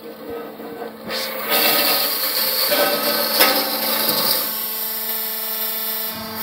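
CNC metal-cutting band saw running with a steady hum, turning much louder and hissier about a second and a half in as the blade saws through metal stock.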